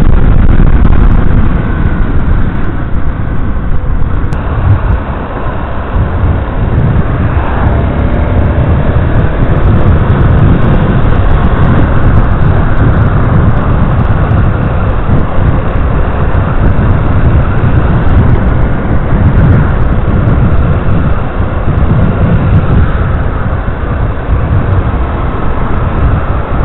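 Yamaha Crosser 150 S motorcycle being ridden at road speed: steady wind buffeting on the handlebar-mounted microphone over the single-cylinder engine running.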